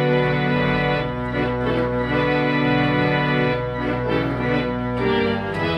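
Pipe organ playing slow, sustained chords that change every second or so, over held deep bass notes.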